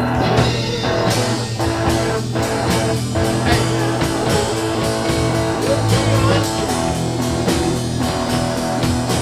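Blues-rock music: an instrumental stretch of a song between sung verses, with guitar over a steady drum beat.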